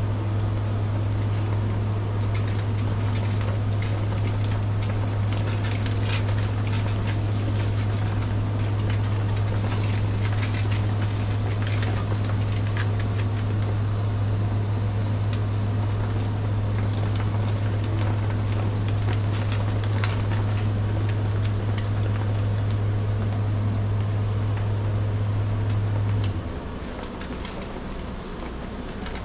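Steady low machine hum from the eel grill setup, which cuts off suddenly about 26 seconds in. Light, scattered crackling of eel fillets sizzling on skewers over the red-hot heating elements runs under it.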